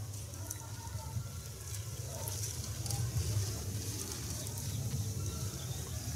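Low steady hum with a faint hiss from an open microphone, with no distinct event.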